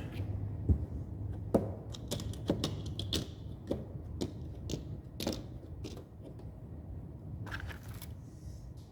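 Irregular sharp clicks and clinks of sockets and socket holders being handled and snapped onto a socket organizer rail, over a low steady hum.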